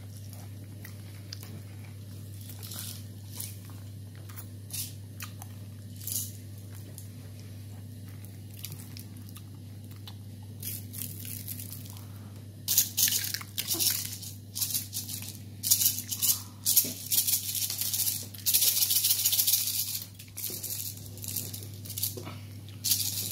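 A small plastic shaker of heart-shaped cake sprinkles being shaken hard in quick rattling bursts over paper cake cases, starting about halfway through and going on in rapid shakes to the end. A steady low hum lies underneath, with a few faint clicks of handling in the first half.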